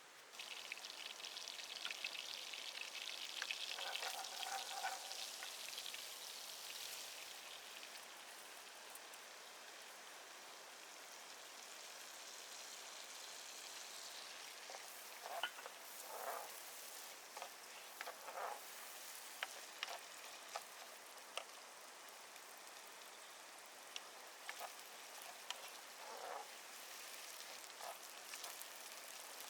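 Food frying in hot oil in a pan over a wood fire: a steady sizzling hiss that starts abruptly, is loudest for the first several seconds and then settles, with scattered pops and crackles in the second half.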